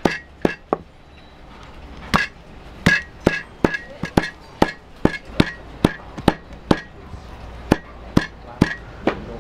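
Small sledgehammer pounding slow-grilled, jerky-dry beef on a thick wooden stump chopping board: a steady run of strikes about two or three a second, with a pause of about a second near the start.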